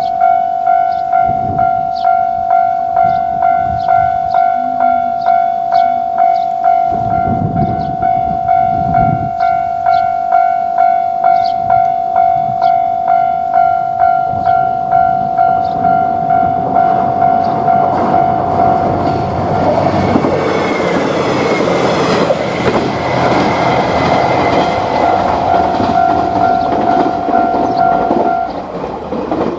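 Japanese level-crossing warning bell ringing its steady electronic 'kan-kan' about twice a second, while a diesel train passes over the crossing from about halfway in, loudest a few seconds later. The bell stops shortly before the end.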